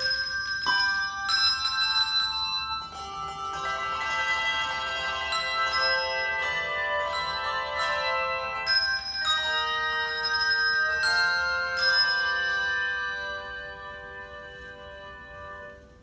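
Handbell choir ringing chords of sustained, overlapping bell tones. The last chord is struck about twelve seconds in and left to ring, fading away near the end.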